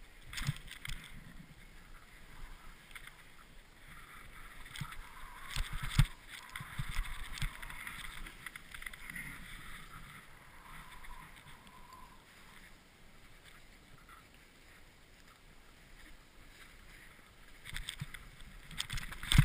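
Snowboard sliding and turning through powder snow, an uneven swishing hiss, with a few dull knocks, the sharpest about six seconds in.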